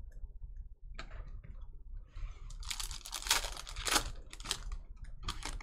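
Foil wrapper of a Panini Select basketball card pack being torn open and crinkled by hand: a scratchy rustle of tearing foil starting about two seconds in, then a few short crackles of the wrapper near the end.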